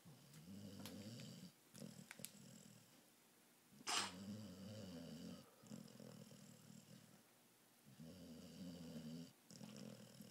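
Pit bull snoring while awake: faint, rasping snores on each breath, about three or four in all. The loudest comes about four seconds in and opens with a sharp burst.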